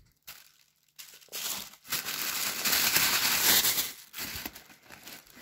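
Tissue paper crinkling and rustling as it is folded back from a pair of trainers in a shoebox. It starts about a second in and is loudest in the middle.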